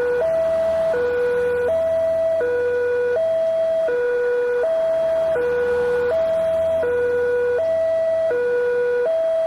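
Railway level-crossing warning siren sounding continuously: an electronic two-tone alarm alternating evenly between a lower and a higher tone, each held about three-quarters of a second.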